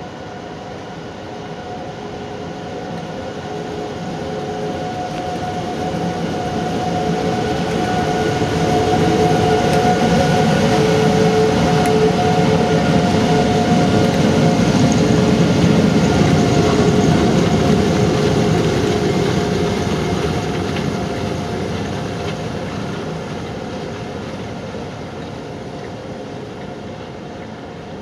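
GB Railfreight Class 92 electric locomotives passing, a steady electrical whine of several tones over the rumble of wheels on rail. It grows louder to a peak about halfway through, then fades away.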